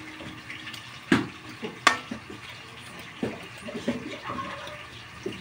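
Slotted metal spatula stirring salmon-head sinigang in a metal wok, the broth sloshing, with two sharp clinks of the spatula on the wok about a second and two seconds in and softer knocks after.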